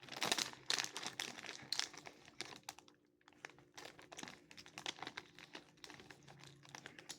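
Crinkling and crackling of a chip bag being handled, in a dense run of small irregular crackles.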